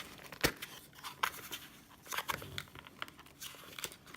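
Handling noise from a boxed collectible lighter and its packaging: rustling with a series of sharp clicks and taps, the loudest about half a second in.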